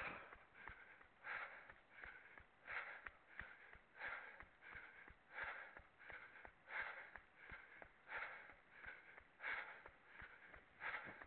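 A runner breathing hard in a steady rhythm, a strong breath about every second and a half with softer ones between, over faint ticking footfalls.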